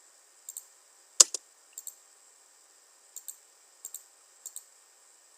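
Computer mouse clicking, mostly in quick press-and-release pairs, about seven times at uneven spacing, with one louder click a little over a second in, as lines are selected and trimmed in a CAD program. A faint steady hiss runs underneath.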